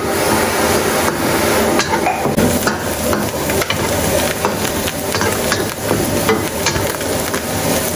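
Chopped salted dried radish (chai po) frying in oil in a wok, sizzling steadily while a wooden spatula stirs and scrapes it, with frequent light clicks of the spatula against the pan.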